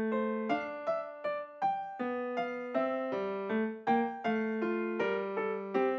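Background music: a melody of single struck notes, about two or three a second, each fading before the next.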